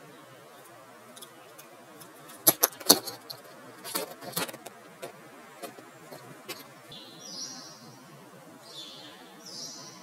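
A great tit's beak and feet on a metal balcony rail: a series of sharp taps and clicks, loudest about two and a half to three seconds in and again about four seconds in. Short, faint, high sounds follow in the second half.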